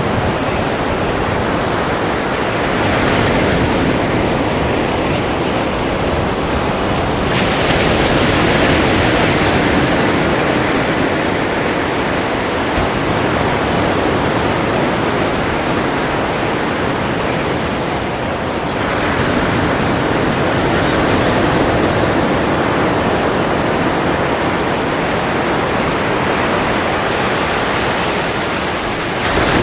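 Ocean surf: a continuous wash of waves that swells several times as new waves break and roll in.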